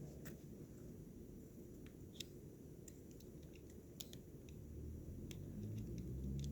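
Faint, scattered small clicks of a Swiss Army knife being handled as its tools are worked, over a low steady room hum.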